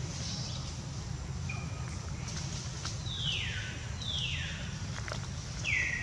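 A bird calling outdoors: three loud, harsh calls that each sweep steeply downward in pitch, two about a second apart past the midpoint and a third near the end that levels off, with a few faint short chirps, over a steady low rumble.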